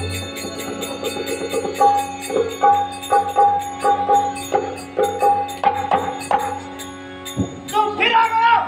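Live stage accompaniment music: a steady jingling beat about three times a second under repeated short pitched notes, with a voice coming in near the end.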